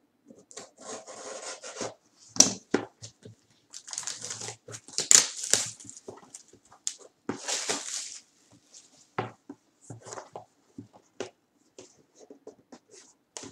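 Plastic shrink-wrap being slit and torn off a cardboard trading-card box, crinkling and rustling in bursts with a few sharp crackles. After about eight seconds it gives way to scattered small clicks and taps as the bare box is handled.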